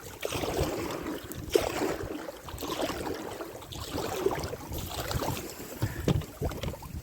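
Water splashing and lapping around a small boat on the water, with wind buffeting the microphone as uneven low rumbles.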